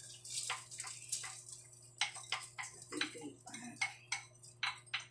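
A spoon tapping and scraping against the inside of a ceramic bowl as soaked rice is scooped out into a clay pot: a quick, irregular series of sharp clicks, about two or three a second.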